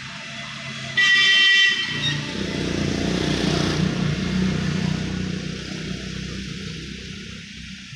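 A vehicle horn honks once, briefly, about a second in, then a passing road vehicle's engine and tyres swell and fade away.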